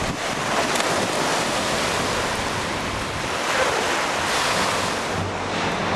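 Small waves breaking and washing up the shore, with wind rushing across the microphone.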